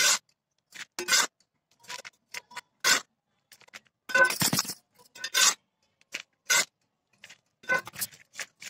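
Small hand trowel scraping up loose soil mix from a concrete floor and tipping it into a plastic pot, in separate scrapes roughly a second apart, with one longer scrape about four seconds in.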